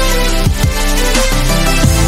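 Background electronic music with deep bass notes that slide down in pitch, several times over the two seconds.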